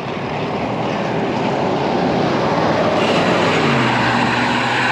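Wind and road noise rushing on a bike-mounted camera's microphone, growing louder. About three and a half seconds in, a steady engine hum joins it as a motor vehicle comes close.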